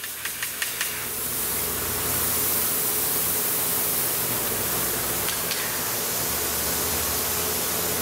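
Plasma cutter with the arc off, compressed air still blowing through the torch as a steady hiss after the cut. A few light clicks near the start and again about five seconds in.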